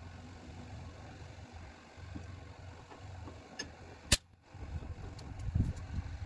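A single sharp crack of a Hatsan Speedfire break-barrel pellet rifle being fired, about four seconds in, with a faint click just before it, over a low background rumble.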